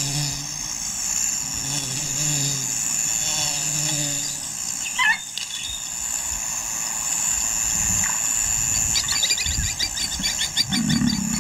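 Bush ambience: a steady high insect drone. A low pulsing tone runs through the first few seconds, a short falling bird call comes about five seconds in, and rapid high chirring pulses start about nine seconds in.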